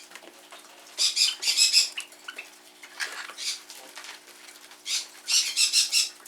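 Small pet birds, a Java sparrow and a Pacific parrotlet, squabbling: three bursts of rapid, harsh, high chattering calls, the first about a second in, another near the middle and the last near the end.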